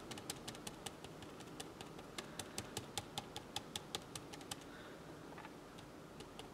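A mini blending sponge dabbing ink onto a plastic stencil over card in a stippling motion: quick light taps, about five a second, that stop about four and a half seconds in, with only a few scattered taps after.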